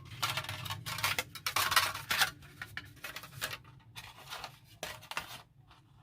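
Optimus windshield of thin hinged metal panels being handled and unfolded, giving irregular crinkling, rattling and light clinks that stop about five and a half seconds in.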